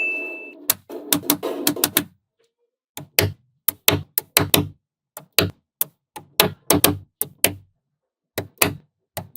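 Small magnetic balls clicking as they snap together one after another: sharp clicks in quick runs of two or three, with short pauses between. A short ding with a whoosh at the very start.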